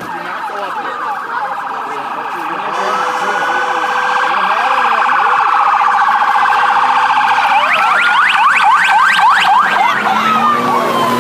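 Police sirens wailing, switching about two-thirds of the way in to a fast yelp, growing louder as they approach.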